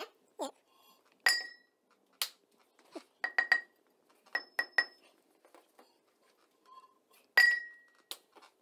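Thick glass bong striking a hard floor again and again without breaking: sharp glassy clinks, each with a short ringing tone, some in quick runs of three, the loudest strike near the end.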